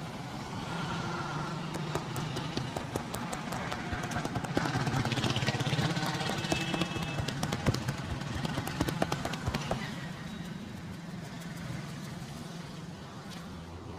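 Street traffic: a motor vehicle engine running, swelling to its loudest in the middle and fading toward the end, with many sharp clicks and taps over it.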